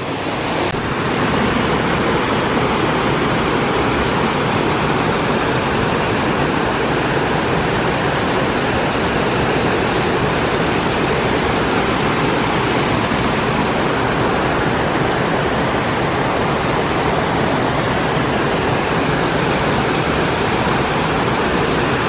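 Small waterfall cascading over rock ledges into a rocky pool: a steady, even rush of falling water.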